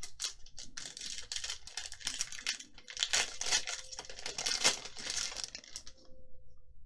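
Thin plastic crinkling and rustling as trading cards and their plastic packaging or sleeves are handled, dense and continuous, stopping about a second before the end.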